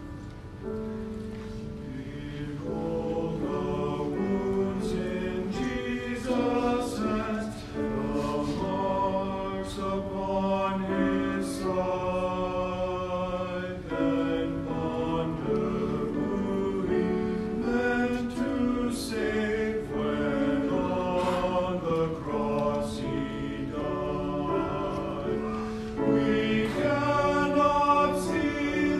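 A family singing a slow hymn together, several voices sounding like a small choir on long held notes. The singing swells a little louder near the end.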